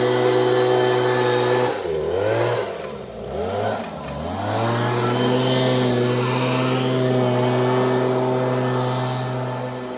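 An engine or motor running with a steady hum. Its pitch sags and recovers three times in quick succession about two seconds in, then it runs on steadily.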